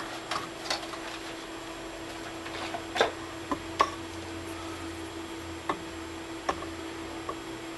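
Scattered light clicks and taps from handling a cable and a small 2.1 mm power connector, about eight over several seconds, over a steady low hum.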